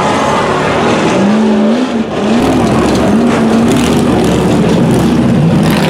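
Ultra4 off-road race car engine revving in repeated surges, its pitch rising and falling several times, as the car crawls up a boulder climb.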